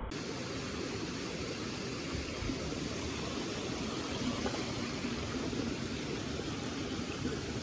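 Mountain stream water rushing over rocks, a steady even noise.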